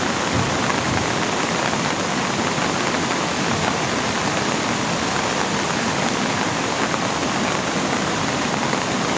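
Heavy rain and torrential floodwater rushing down a flooded street, a steady loud wash of noise.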